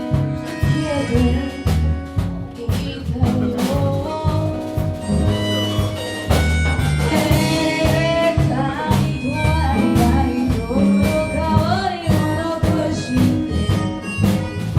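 Instrumental music: a steady, repeating bass line under a lead melody that slides between some notes.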